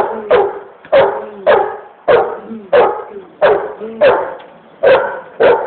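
Pit bull barking repeatedly in a steady run of loud barks, roughly one every half second.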